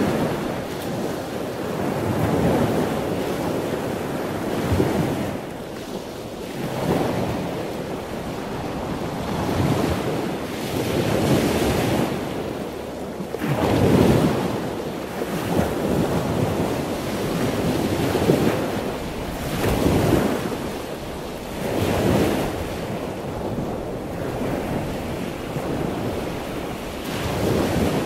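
Cockpit noise of a single-engine Cessna climbing out after takeoff: engine drone blended with a rush of air, swelling and easing every two seconds or so.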